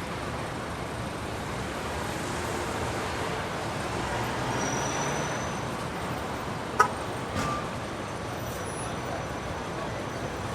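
City street traffic: a steady wash of passing cars and other vehicles, with a single sharp knock about seven seconds in and a softer one just after.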